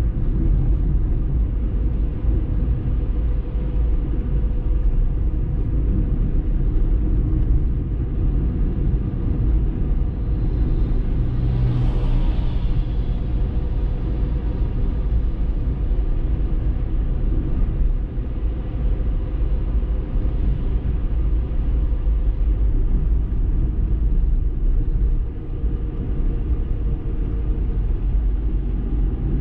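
Steady low rumble of a car driving through city streets, engine and tyre noise heard inside the cabin. About twelve seconds in, a brief swell of louder noise rises and fades.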